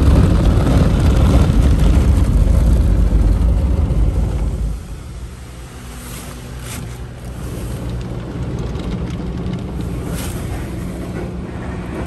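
Spray jets of a PDQ Tandem Surfline touchless car wash blasting water against the car, heard from inside the car. Loud and steady, the spray cuts off about five seconds in, leaving a quieter steady hum.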